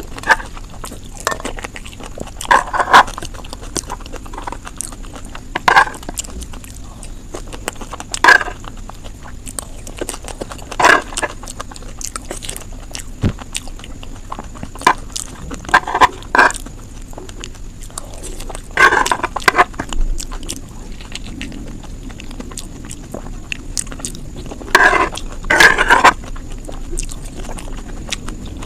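A person biting and chewing crisp dahi puri, whole puris crunched in the mouth, with a loud bite every two to three seconds and a steady low hum underneath.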